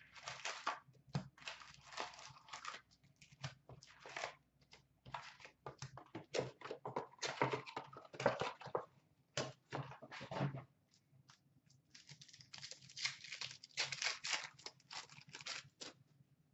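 Upper Deck hockey card pack wrappers being torn open and crinkled by hand, with cards being handled. Irregular crackling and rustling, with a short lull about eleven seconds in.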